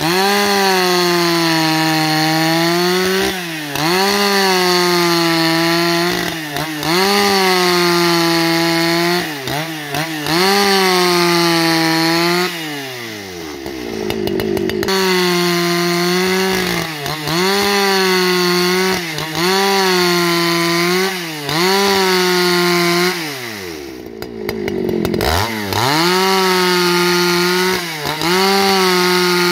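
Husqvarna 281 XP two-stroke chainsaw ripping lengthwise along a log at full throttle, its engine note sagging and recovering every second and a half to two seconds. Twice, about halfway and again a few seconds before the end, the engine drops off toward idle and then revs straight back up.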